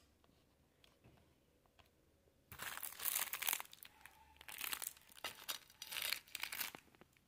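Plastic wrapper of a packet of stacked biscuits crinkling as it is handled, in several bouts starting about two and a half seconds in.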